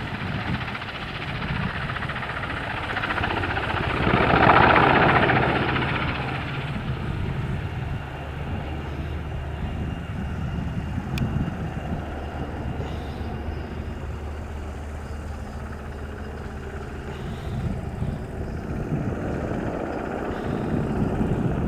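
NH90 helicopter flying away after take-off: the steady rotor and turbine sound swells about four seconds in, then grows fainter as the helicopter climbs away.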